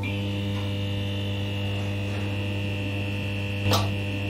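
Steady electrical buzz of a neon sign: a low mains hum with a higher whine above it, broken once by a short crackle about three and a half seconds in.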